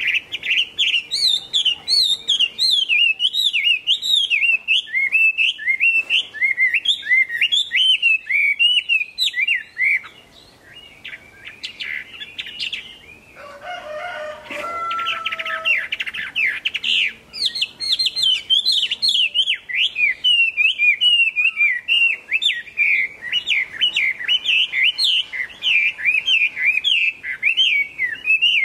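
Caged Chinese hwamei (melodious laughingthrush) singing a long, fast run of rising and falling whistled notes. It breaks off about ten seconds in and takes up the song again after several seconds.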